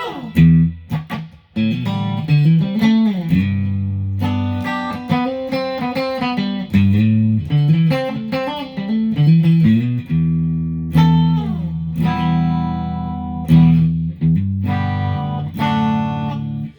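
Electravox Jazzmaster electric guitar with GFS pickups, played through an amplifier on the fifth setting of its six-way pickup switch: a run of picked notes and strummed chords that stops abruptly at the end.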